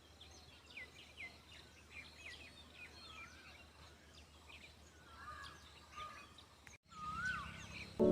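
Faint birdsong from several small birds: many quick, short chirps and some rising-and-falling whistled notes over a quiet background hiss. The sound drops out briefly near the end, then returns with a slightly louder background.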